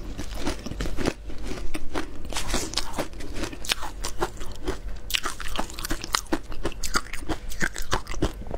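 Close-miked crunching and chewing of frozen matcha-coated shaved ice: a rapid, irregular run of sharp crunches and crackles.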